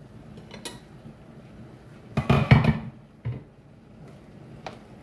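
Cooking pot and utensils clattering as the pot of rice is opened and checked: a few light clicks, then a loud cluster of knocks about two seconds in, and one more knock shortly after.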